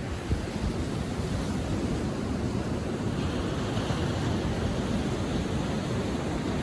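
Atlantic surf breaking and washing up a sandy beach at low tide: a steady rushing noise with a low rumble, and a brighter hiss of foam for about a second and a half about three seconds in.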